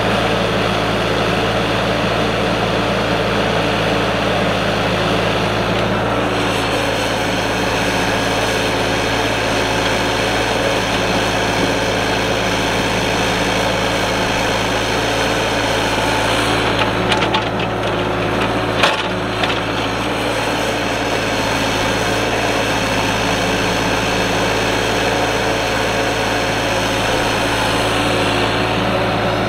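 Kubota mini excavator's diesel engine running steadily under working load, with a brief clatter and one sharp knock about two thirds of the way through.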